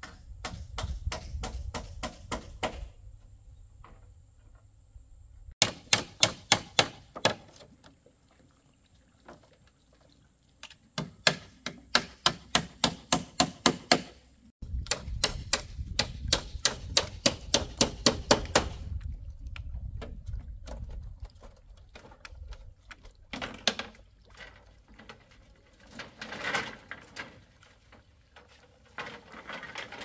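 Quick runs of sharp tool blows on bamboo, about four strikes a second, in three bursts of two to four seconds each, then a few scattered knocks.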